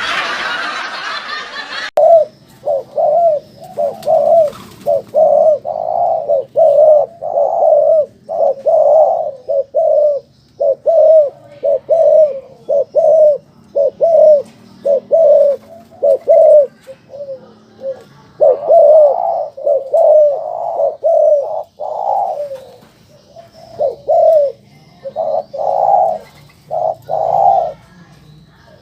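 Domestic ring-necked dove (puter, a colour variety) giving its rapid 'giring' courtship coo: a long run of short, low coos at about two a second, with a brief pause about three quarters of the way through.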